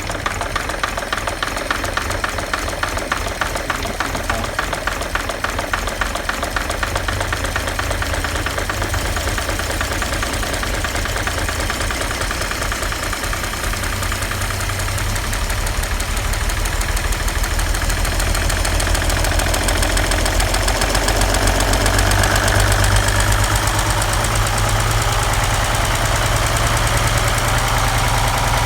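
1940 Chevrolet 216 inline-six running with a rapid, steady knock from worn bearings, a sign of the low oil pressure and the need for a rebuild. It gets gradually louder over the second half.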